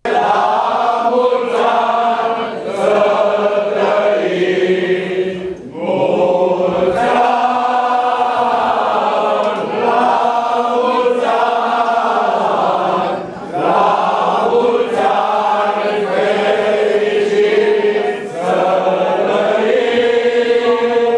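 A group of people singing together in long phrases, pausing briefly about every five to seven seconds.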